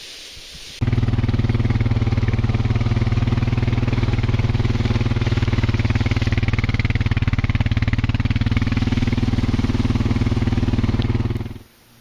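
An engine running steadily at an even speed, starting and cutting off abruptly.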